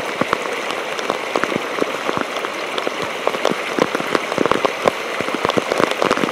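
Heavy rain pelting down, full of sharp drop hits striking close by.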